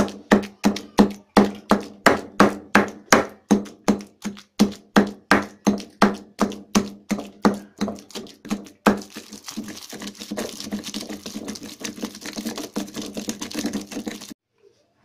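Wooden pestle pounding chutney in a granite mortar, about three thuds a second. Some nine seconds in it changes to a faster, rougher crushing and scraping, which stops suddenly near the end.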